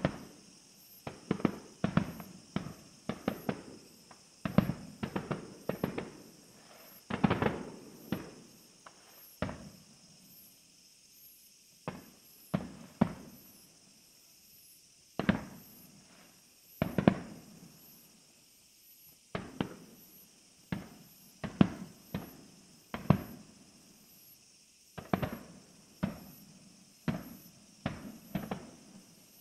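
Festival fireworks bursting overhead: dozens of sharp bangs in quick, irregular volleys, each with a short fading rumble, broken by brief lulls of a second or two.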